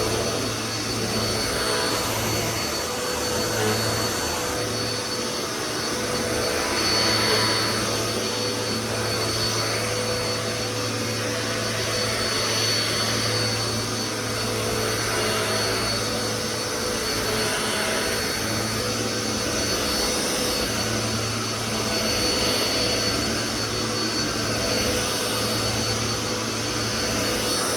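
Dirt Devil Power Max upright vacuum cleaner running steadily with a whining motor, its hiss swelling and easing every couple of seconds as it is pushed back and forth. The owner says the motor's sound has changed because of wear.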